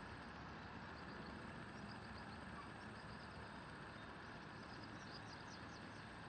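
Faint, steady background noise with no distinct event: room tone, with some faint high chirps in the middle.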